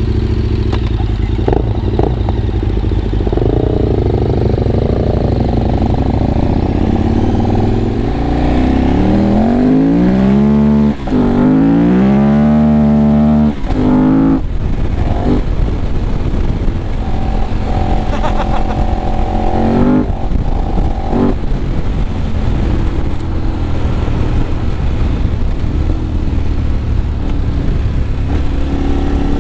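KTM 1190 Adventure R's V-twin engine riding off, its Akrapovic muffler running with the baffles removed. The revs rise and fall repeatedly about a third of the way in, with a short dip in the middle of that stretch, then the engine runs on with smaller throttle changes.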